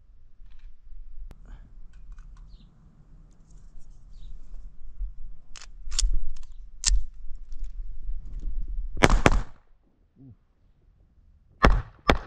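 Laugo Arms Alien 9mm pistol being handled, with sharp metallic clicks and clacks, over wind rumbling on the microphone. Near the end come two sharp gunshots about half a second apart.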